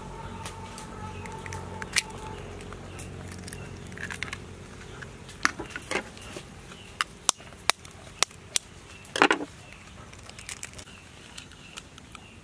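Duck eggshells being cracked and picked apart by hand: a run of sharp clicks and crackles, with a few louder cracks.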